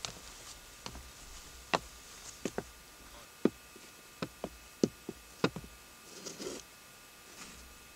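A foley artist handling props: about a dozen sharp, irregular knocks and taps, several coming in quick pairs, with a short rustle about six seconds in.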